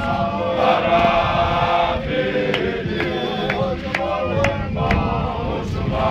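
A large group of Zion Christian Church men singing a hymn together in unison, with about six sharp percussive hits, roughly two a second, through the middle.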